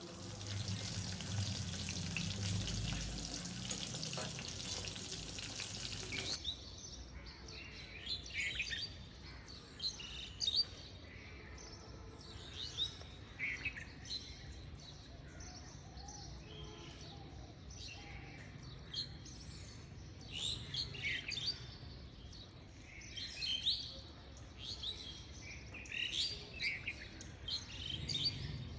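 Breaded chicken cheese balls deep-frying in hot oil: a dense crackling sizzle for about six seconds that cuts off abruptly. After that, birds chirp repeatedly over a faint low hiss.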